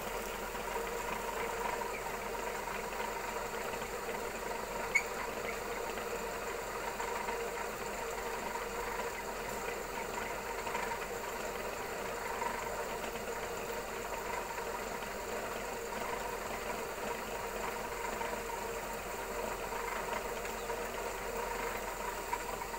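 Motor-driven warp beaming machine running steadily, its belt and pulley turning the beam as warp yarn winds onto it, giving an even mechanical hum. A single sharp click about five seconds in.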